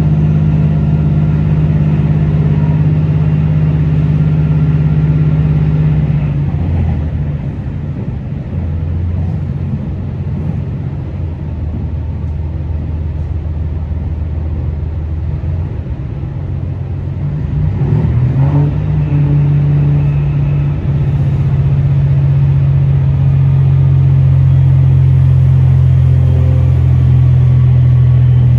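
Diesel railcar engine running under the floor, heard inside the passenger cabin: a steady low drone that eases off about six seconds in, then revs back up about two-thirds of the way through and holds steady and loud.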